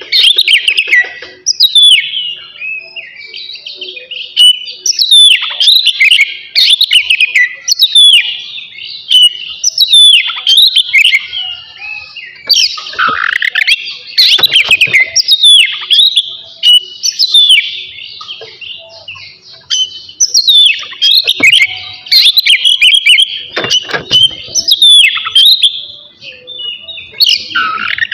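Oriental magpie-robin (kacer) singing loudly: a continuous run of varied whistled phrases with sharp downward-sweeping notes, a new phrase about every second.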